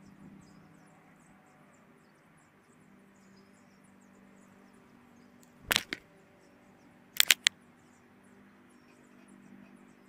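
Sharp wooden knocks on a hanging platform feeder as an oriole lands and moves on it: a short cluster a little past halfway, then three quick clicks about a second later. Faint high chirps and a low steady hum run underneath.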